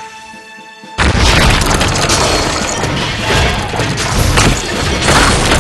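Soft background music, then about a second in a sudden loud boom that carries on as a dense, rumbling crash sound effect.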